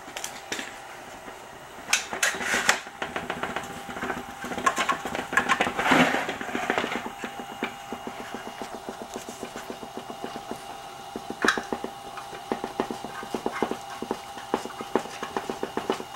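Vibro Balance Blaze vibration-plate machine running open at low speed: its DC motor drives an off-center shaft through a belt, which sets the platform oscillating. It gives a steady hum with a fast, even rattle and a few louder knocks.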